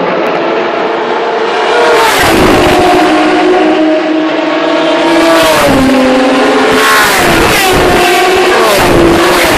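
Historic racing touring cars accelerating hard down the straight past the pit wall, one after another. Their engines climb in pitch and drop back at each upshift, several times over, as each car comes past.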